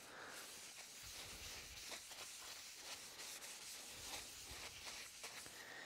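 Faint, soft rubbing of a cloth wiping oil finish onto a wooden serving board.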